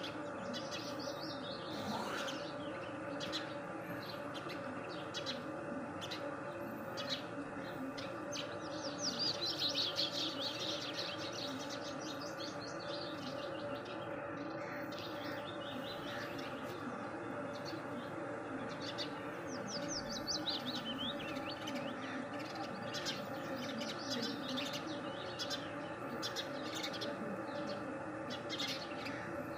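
A group of small birds chirping and twittering continuously, with louder bursts of rapid trilled twittering about nine seconds in and again around twenty seconds. A steady low hum runs underneath.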